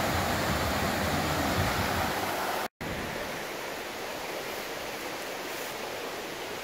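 Small mountain creek rushing and splashing over rocks, a steady noise. About two and a half seconds in it cuts out for an instant and comes back quieter and thinner.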